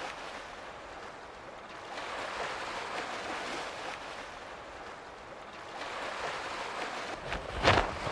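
Sea surf washing in and out, a steady rush that swells and ebbs every few seconds. Near the end, music with drum hits comes in.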